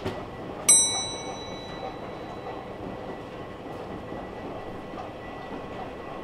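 Subway station ambience: a steady low hum of background noise with a faint thin high whine. Just under a second in, a single bright metallic ding rings out and fades over about a second.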